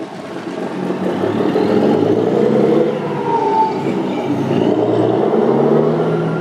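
Volvo FH16 520's D16A 16-litre straight-six diesel pulling the truck and a container trailer away from a standstill. The engine revs climb about a second in, ease off around the middle, then climb again.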